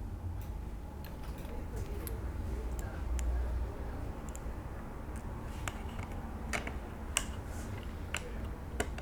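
Scattered small clicks and taps of small screws and 3D-printed plastic kit parts being handled, over a low steady hum.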